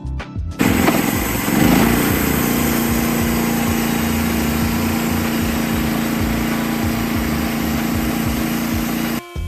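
Small gasoline engine starting up abruptly, revving up over about a second, then running at a steady high speed before cutting off suddenly near the end.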